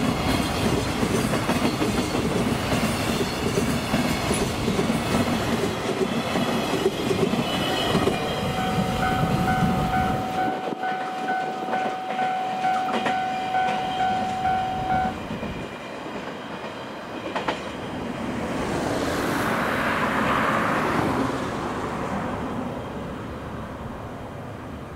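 Container wagons of a freight train rumbling and clattering past on the rails, the rumble dropping away about ten seconds in. A level crossing warning bell rings with a steady pulsing tone for several seconds around the middle, and later a brief swell of rushing noise rises and fades.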